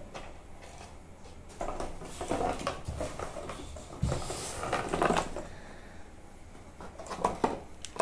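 A plastic toy truck being handled and pushed, with scattered knocks and clatters from the truck and the plastic rings and balls it carries.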